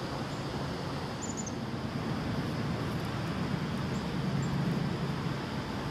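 Steady outdoor background noise with a low rumble, with a quick run of four short high chirps about a second in.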